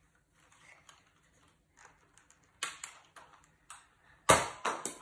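Sharp plastic clicks and knocks from a Nerf Dino Squad Triceratops toy blaster being handled, about half a second apart, ending in a louder thump with two quick clicks after it near the end.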